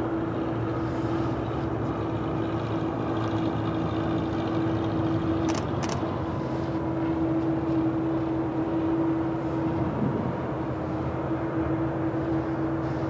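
Boeing 787 on the ground running with a steady jet drone and a constant mid-pitched hum. Two sharp clicks sound a little past the middle.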